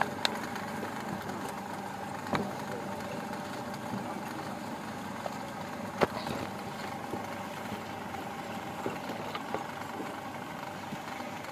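Electric motor driving a belt-and-pulley screw extruder, running steadily as cow dung is forced through it into a log. A few sharp knocks come through over the hum, the loudest about six seconds in.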